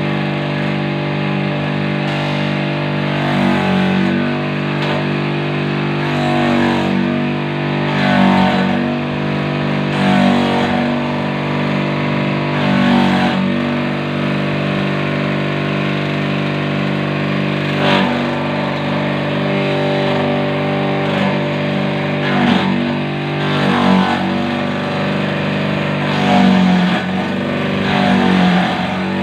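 Motor of a used water pump driving a homemade banana-stem chopper, running with a steady hum. Rough chopping swells come every few seconds as pieces of stem are pushed into the blades and shredded.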